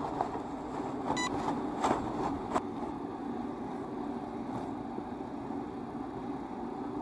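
Steady hum of a distant motor. About one to two and a half seconds in come a few sharp clicks and a rustle as an umbrella is opened.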